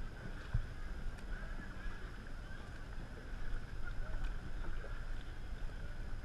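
Dragon boat paddles dipping and splashing as the crew paddles, over a steady low rumble.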